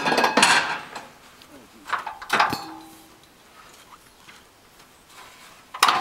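Metal clanks and scrapes from the frame and motor carriage of a Lucas Mill portable sawmill being handled: a loud clattering scrape at the start, another about two seconds in, and a sharp clank near the end.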